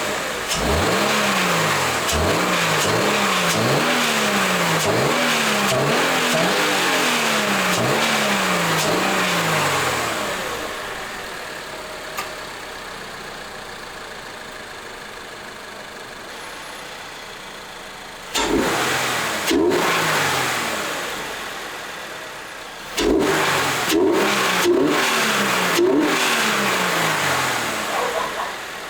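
Toyota GR86's 2.4-litre flat-four, breathing through a K&N cold air intake, revved in quick successive blips with strong induction noise. It drops to a quieter steady idle in the middle, then is blipped sharply several more times near the end.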